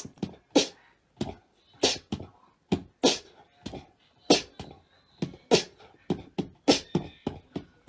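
A run of short, sharp clicks or taps, irregularly spaced, about two or three a second.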